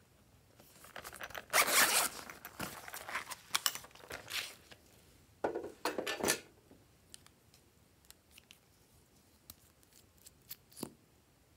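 Zipper on a hard-shell pencil case being pulled open, a loud rasp about two seconds in and another pair of short rasps around six seconds in, then a few light clicks from plastic tubes being handled.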